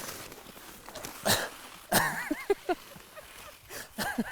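Skiing sound effects made with the mouth: short hissing swooshes for the turns, mixed with wobbling vocal whoops and grunts.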